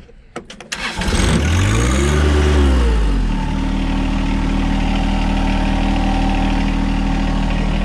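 John Deere 1025R compact tractor's three-cylinder diesel being started: a few clicks, then the engine catches about a second in, rises in speed and drops back, and settles into a steady idle by about three seconds in.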